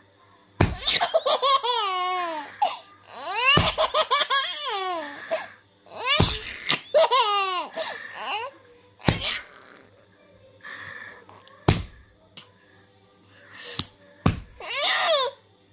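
Baby laughing in several bursts of high-pitched squealing giggles, each falling in pitch. Each burst comes right after a sharp click or knock.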